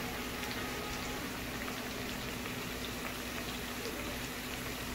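Eggplant slices frying in shallow oil in a pan: a steady sizzle with faint scattered pops, over a steady low hum.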